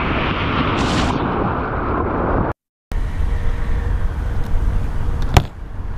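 Whitewater rushing and splashing around a kayak running river rapids. After a brief cut to silence comes a low rumble, with one sharp click near the end.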